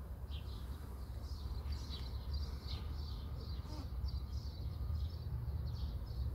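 Small birds chirping: short, high, falling notes repeating a couple of times a second, over a steady low rumble.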